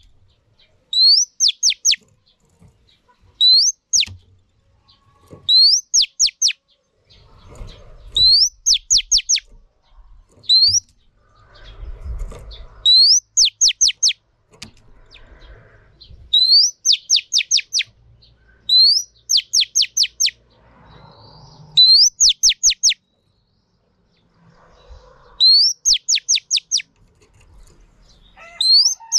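Female oriental magpie-robin repeating one short song phrase: a rising whistle followed by a quick run of three to five sharp falling notes, about every two to three seconds, with a pause of a few seconds near the end.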